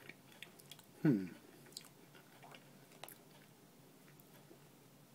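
A person chewing a gummy jelly baby sweet: faint, scattered mouth clicks throughout, with one short voiced murmur falling in pitch about a second in.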